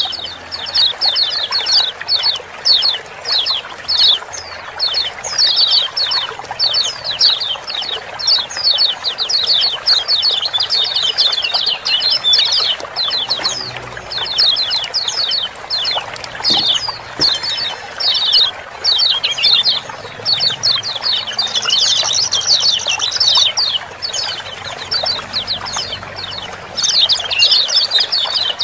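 Kecial kuning white-eyes giving their rapid 'ciak-ciak' chip calls, many birds together in dense, continuous runs of high chirps, over a steady background of running water.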